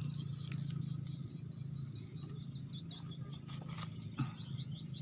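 Insects chirping in quick, chattering trills over a steady low hum, with a couple of faint clicks near the end.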